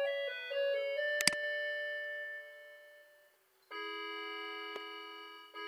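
Short electronic melody of held keyboard-like notes, then a sustained chord that fades and sounds again near the end. A sharp double click comes about a second in.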